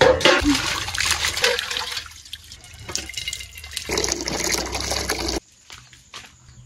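A stream of water pouring and splashing into an aluminium pot; the pouring cuts off suddenly about five seconds in.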